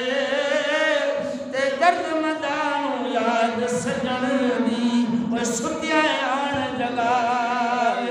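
A man's unaccompanied voice singing a devotional verse in long, wavering held notes, chant-like, with short breaks between phrases.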